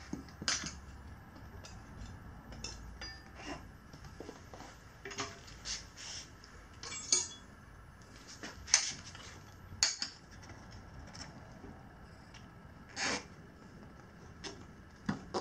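Steel tire irons clinking and scraping against a Sur Ron Light Bee's rear wheel rim while a Kenda Trakmaster tire bead is levered onto it: a string of irregular metallic clinks and taps, the sharpest a little before the middle and about two thirds of the way through.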